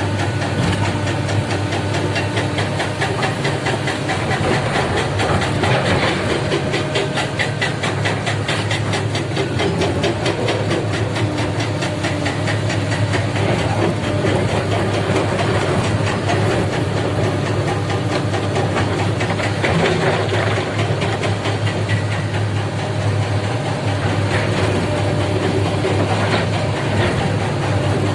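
Heavy diesel machinery at work, the engine of a hydraulic excavator loading a dump truck running steadily with a deep hum and a fast clatter, plus some hiss.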